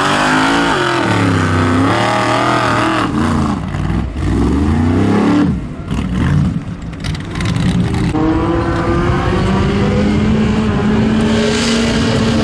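Formula Offroad buggy engine revving hard, the pitch swinging up and down sharply as the throttle is blipped on a sand hill climb. About halfway through the note breaks up and drops a little, then an engine comes back with a steadier note that rises slowly to the end.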